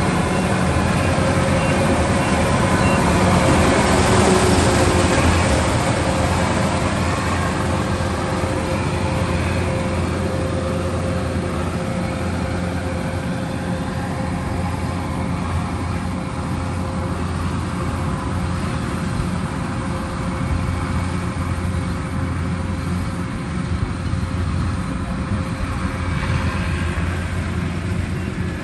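Kubota rice combine harvester running steadily, a continuous machine drone with a steady hum, a little louder a few seconds in and then easing slightly.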